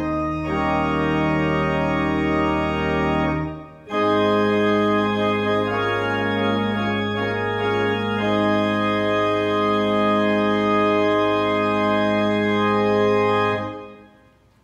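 Church organ playing sustained chords over low bass notes, with a short break about four seconds in. It then holds a long chord that stops about a second before the end.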